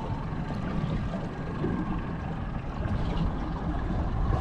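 Steady low rumble aboard a small fishing boat at sea, with no distinct knocks or calls standing out.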